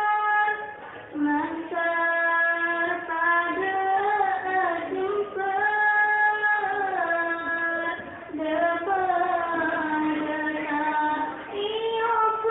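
A high young voice singing a sholawat (Islamic devotional song) in long held notes with ornamented, melismatic turns, pausing briefly for breath between phrases.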